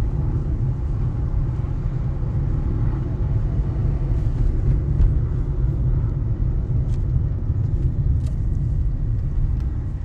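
Steady low rumble of a car driving on a paved road, engine and tyre noise heard from inside the cabin.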